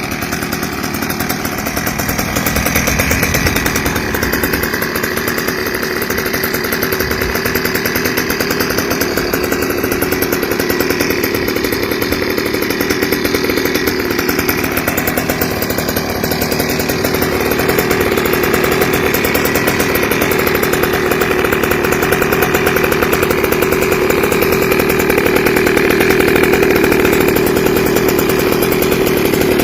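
GoPed stand-up scooter's small two-stroke engine running steadily through an aftermarket exhaust pipe with a silencer, getting a little louder past the middle.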